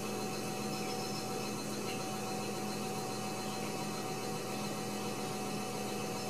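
Steady hum with an even hiss, unchanging throughout.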